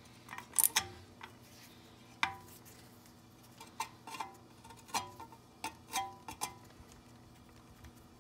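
Irregular sharp metallic clicks and clinks, some ringing briefly, from a hex-bit socket and handle being fitted to and turned on the 5 mm hex-head bolt that holds the wheel speed sensor in the hub. A faint steady hum runs underneath.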